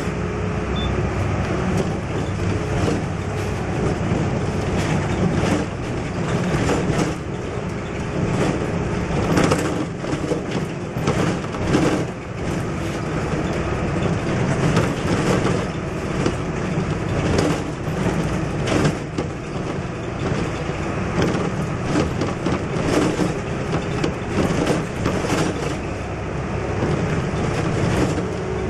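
Interior of a MAN NL222 city bus on the move: the diesel engine's steady drone with road noise, and frequent short rattles and knocks from the bus body as it runs over the road surface.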